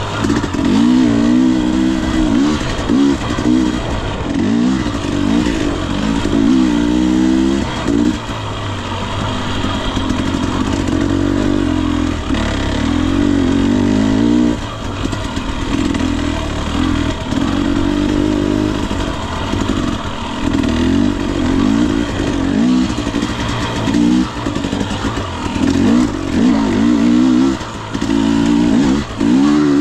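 Husqvarna TE 250i fuel-injected two-stroke dirt bike engine revving up and down under constantly changing throttle, its pitch rising and falling every second or two.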